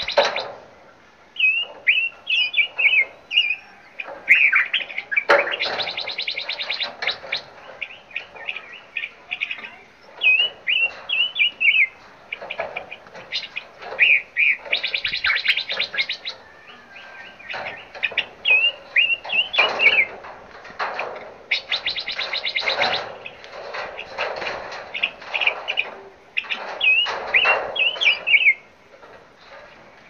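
Several songbirds singing and calling at once: quick, repeated whistled phrases that swoop up and down. Several times, a few seconds long each (about 5, 14 and 21 seconds in), a harsh, buzzy chatter breaks in over them.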